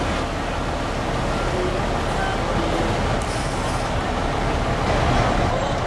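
Fire engines driving slowly past one after another, their heavy engines running in a steady low rumble that grows a little louder about five seconds in.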